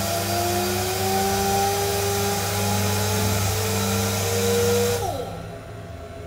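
Rotary deburring brush spinning against the teeth of a helicopter bevel gear: a loud hissing grind with a slowly rising whine. About five seconds in the brush lifts off the gear, the whine falls away and the noise drops sharply, leaving the machine's low hum.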